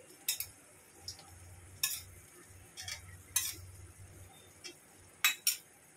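Steel spatula scraping and clinking against a black wok as vegetables are stir-fried, about six short strokes at uneven gaps.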